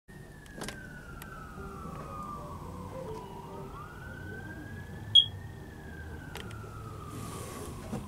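A siren wailing, its pitch slowly falling and rising over several seconds, over a low background rumble. A short, sharp, high beep stands out about five seconds in.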